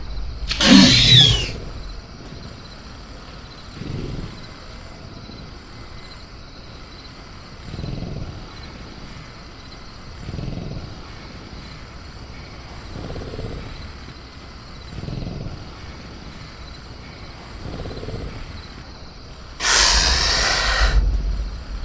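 Sound-designed velociraptor in a cage: a shrill screech about half a second in, then low growls every two to three seconds, and a loud harsh shriek near the end. Faint crickets chirp steadily underneath.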